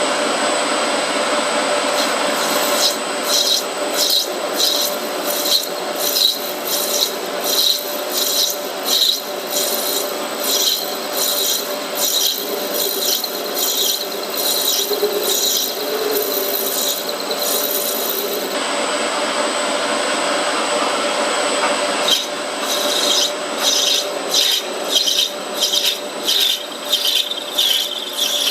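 Metal lathe running with a steady motor hum. Over it come repeated scraping strokes, about two a second, as metal is taken off the spinning workpiece. The strokes stop for a few seconds past the middle and then start again.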